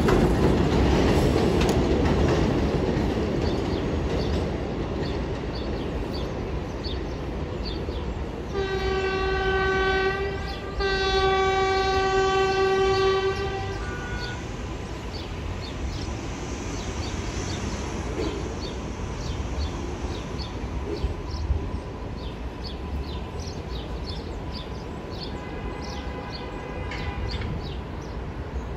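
New York subway train horn sounding twice about eight seconds in, a short blast then a longer one of about three seconds, and once more faintly near the end. Under it is the rumble of a train running on elevated track, which fades over the first few seconds.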